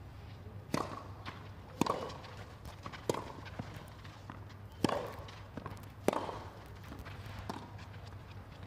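Tennis rally: a served ball, then rackets striking the ball back and forth, about five sharp strikes spaced a second or more apart over a low steady hum.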